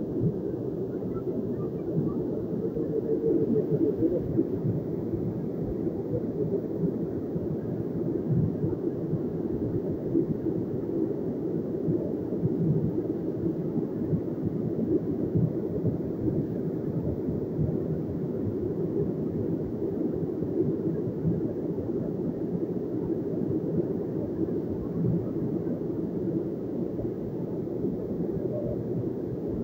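Mountain stream in muddy flood, its brown floodwater rushing in a steady, low, unbroken noise.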